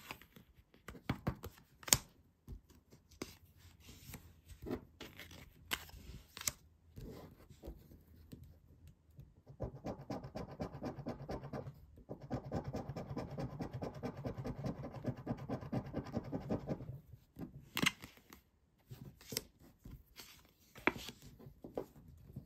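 A euro coin scratching the coating off paper scratch cards. Short scrapes and sharp ticks come first, then a long run of rapid back-and-forth scratching from about ten seconds in to about seventeen, then more short scrapes and ticks.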